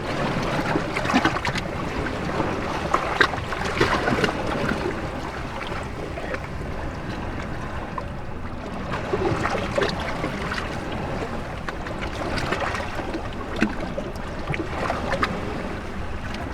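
Ocean waves washing in among shoreline rocks: a continuous wash of moving water with frequent sharp splashes and gurgles as it breaks between the rocks, under steady wind.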